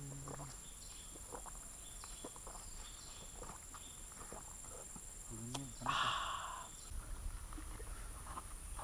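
A steady high-pitched drone of insects, with faint gulps and clicks as a hiker drinks from a plastic bottle, and a short breathy burst about six seconds in.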